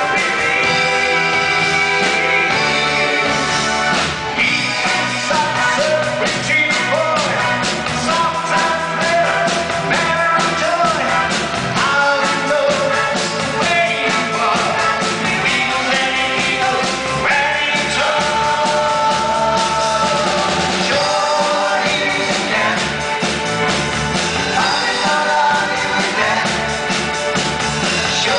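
Live pop-rock band playing, with a male lead voice singing over acoustic guitar, bass, keyboards and drums.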